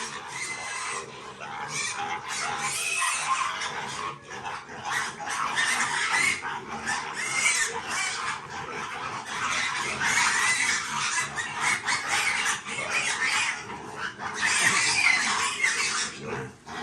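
Hungry piglets squealing continuously, a dense high-pitched din of overlapping squeals, as they wait to be fed.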